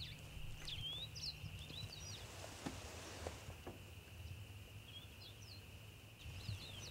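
Faint chirps and short whistles of small birds, scattered throughout, over a steady high hum and a low rumble, with a couple of faint ticks near the middle.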